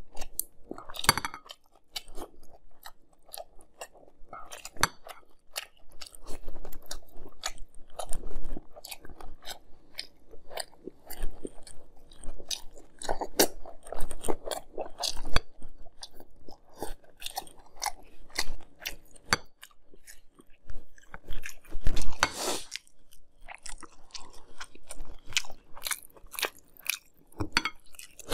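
Close-up chewing of Fruity Pebbles, crisp rice cereal in milk, with many small irregular crunches and mouth sounds. One longer, louder noise comes about three quarters of the way through.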